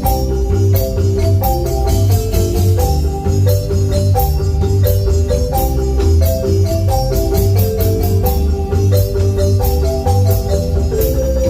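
Marimba band playing a quick, rhythmic dance tune, with struck marimba notes over a pulsing bass and hand percussion such as tambourine. A held, organ-like note comes in near the end.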